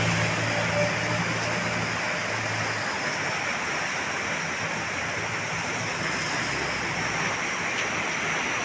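Muddy rainwater churning up out of a blocked culvert and spilling across the road surface: a steady rushing of water, the sign of a drain clogged so the water backs up and overflows. A low engine hum sits under it for the first few seconds and then fades.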